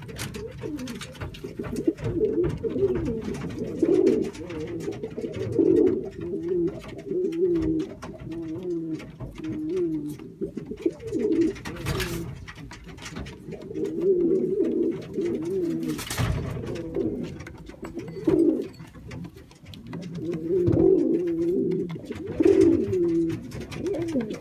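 Cuban thief pouter pigeon cooing in repeated wavering phrases, with two sharp knocks about halfway through.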